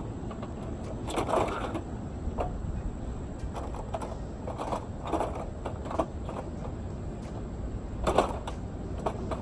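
Skateboard rolling with a steady low rumble, broken by irregular knocks and scrapes as the board hits the wrecked microwave, a little louder about a second in and again near the end.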